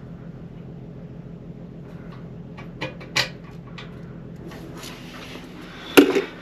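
A few light clicks from a Gardall floor safe's lock being worked, then a loud sudden clunk near the end as the safe comes open, over a steady low hum.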